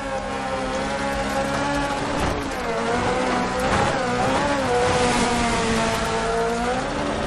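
Engine of an off-road cage buggy running at varying revs, its pitch dipping and rising again several times.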